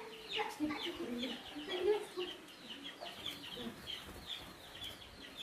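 Birds chirping: a steady run of short, high chirps, about two or three a second, with some lower calls in the first half.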